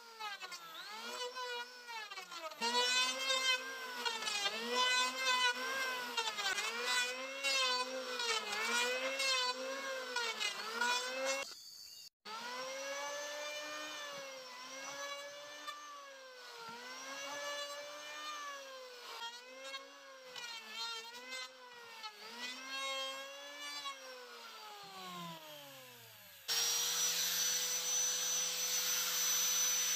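Electric hand planer cutting wood, its motor whining and its pitch swinging up and down with each pass about once a second. Near the end a different power tool takes over with a steady hum and hiss.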